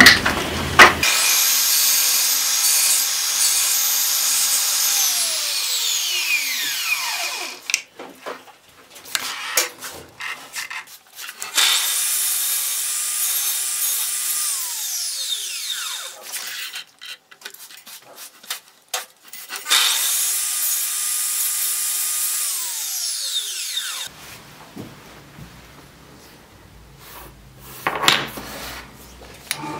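Power miter saw spun up three times to cut small wood discs. Each run is a steady high whine that winds down with a falling pitch once the trigger is released. Short clicks and knocks from the pieces being handled fall between the cuts.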